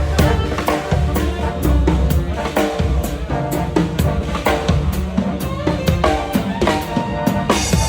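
A drum kit played in a steady groove, with frequent bass drum and snare hits, while pitched instruments play along as a band.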